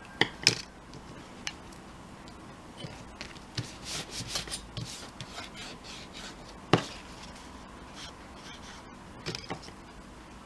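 Scissors and card handled on a craft tabletop: a couple of sharp knocks, and a series of short rasping rubs as the card is pressed flat by hand.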